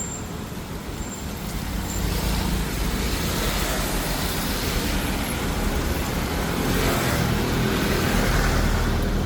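Street traffic close by: vehicle engines running with a steady rumble and hiss, growing louder about two seconds in as traffic nears.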